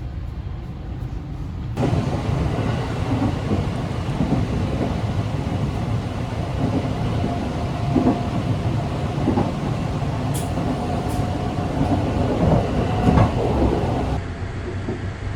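285-series sleeper train running at speed: a steady rumble of wheels on rail with scattered clicks and knocks. It gets suddenly louder about two seconds in and drops back shortly before the end.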